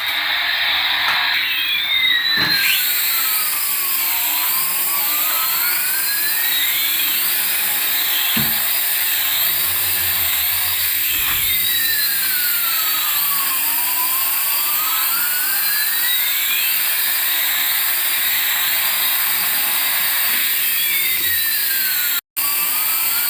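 Toy aircraft's electronic sound effect: a steady jet-engine hum with a siren-like tone that sweeps down and back up every few seconds. The sound cuts out for a split second near the end.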